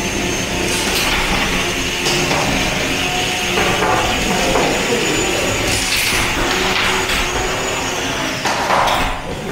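High-pitched whine of an antweight combat robot's spinning weapon motor, held steady and then dropping away and stopping near the end. Several sharp knocks of robots hitting each other or the arena walls break in over a noisy clatter of the drive and arena.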